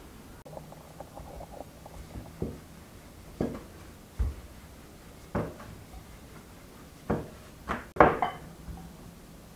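Wooden rolling pin working dough on a wooden board, knocking against the board several times about a second apart, the loudest knock near the end.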